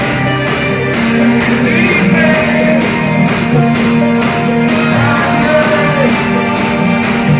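Loud electronic dance music played over a club sound system during a DJ set, with a steady beat of about two per second and a plucked guitar-like melody over it.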